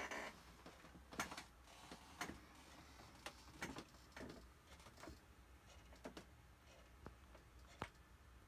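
Near silence: room tone with a low hum and scattered faint, irregular clicks and taps.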